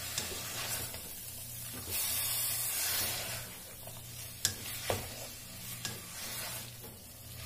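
Beef liver strips, onion and bell pepper sizzling in a pot as a wooden spoon stirs them, the sizzle swelling and easing with the stirring. Two sharp knocks, the spoon striking the pot, come about halfway through.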